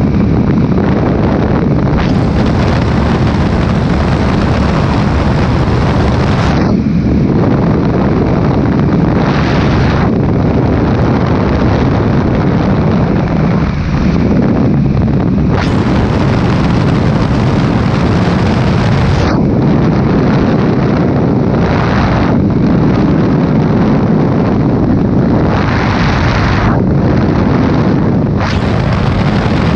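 Baby Ace light aircraft in flight, heard from its open cockpit: the engine running steadily under heavy wind buffeting on the microphone. The rush of air swells and gets hissier several times, for a few seconds each.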